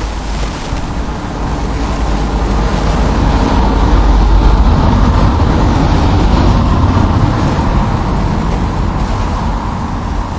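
A road vehicle passing: a rumbling, rushing noise that swells to its loudest about halfway through and then fades.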